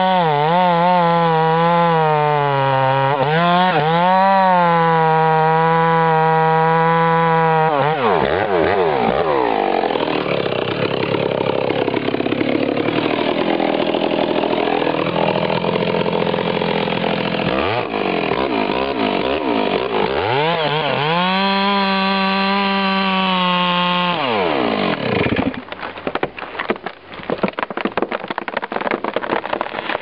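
Two-stroke chainsaw at full throttle cutting into the base of a large tree, its pitch wavering and sagging as it bogs down in the cut, then climbing back. Near the end the saw cuts out and a run of cracks and crashes follows as the tree goes over.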